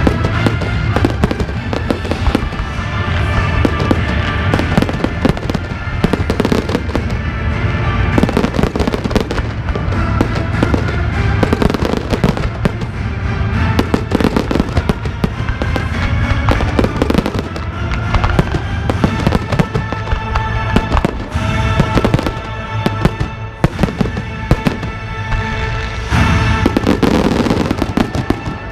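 Fireworks display: a dense, continuous run of shell bursts and crackling, heard over music.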